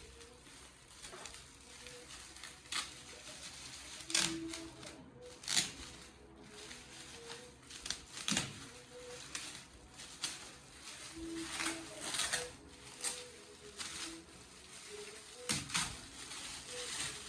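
Gift packaging being opened and handled: irregular rustles, crinkles and small knocks of wrapping and box.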